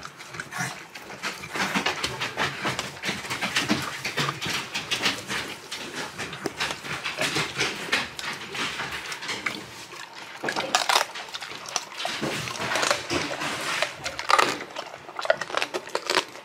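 A Saint Bernard eating raw meat out of a metal bowl, chewing noisily with an irregular run of wet clicks and crunches.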